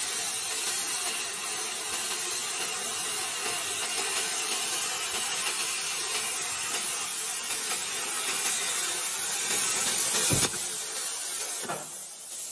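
Plasma cutting torch (AG60/SG55 type) cutting through steel plate: a steady, loud hiss of the arc and air jet. It cuts off abruptly with a click near the end, leaving a fainter hiss.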